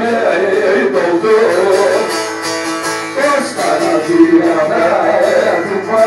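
A man singing a Turkish aşık folk song into a microphone, accompanied by a bağlama (long-necked saz lute) plucked continuously under the voice.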